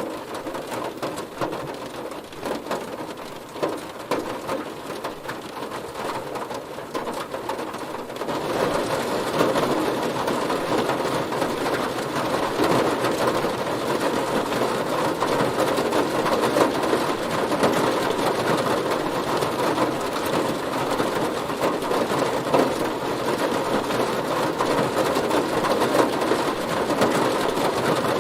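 Heavy rain falling on a car, a dense steady patter of drops that grows louder and heavier about eight seconds in.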